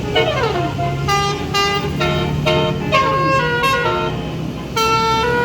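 A tour bus's basuri horn, a multi-note musical air horn, playing a quick melody of short stepped notes with a few sliding pitches, over the steady low hum of the bus's engine.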